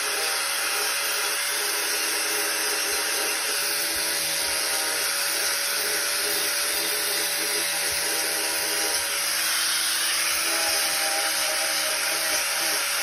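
Angle grinder with a wire cup brush running steadily against a cast-iron exhaust manifold, scrubbing rust off the flange faces: a constant motor whine over the hiss of the wire bristles. The mating surfaces are being cleaned so the gasket seals against an exhaust leak.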